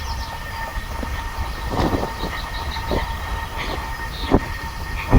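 A freshly landed carp thrashing in the landing net, giving sharp slaps and splashes every half second to second. Small birds chirp and a steady low rumble runs underneath.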